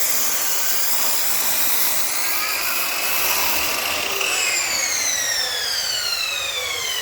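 Electric power saw cutting wood, its motor running at full speed with a high whine. A little past halfway the saw is switched off and its pitch falls steadily as the blade spins down.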